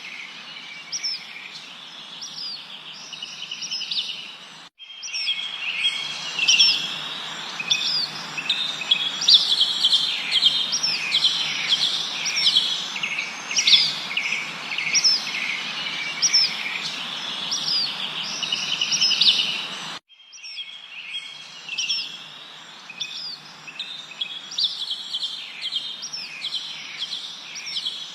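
Many songbirds chirping and trilling at once, short repeated calls overlapping over a steady background hiss. The sound cuts out abruptly twice, about five and twenty seconds in, like joins in an edited or looped recording.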